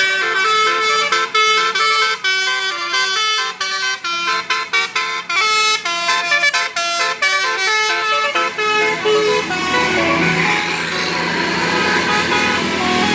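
Bus's Basuri telolet musical horn playing a quick tune of short, stepped notes for about nine seconds, then a rush of engine and road noise, with horn notes starting again near the end.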